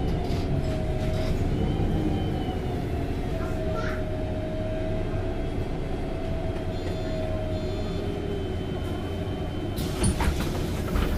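MAN NG273T4 articulated bus running on LPG while driving: a steady low engine rumble with a whine that slowly rises and falls in pitch. There are a few sharp knocks about ten seconds in.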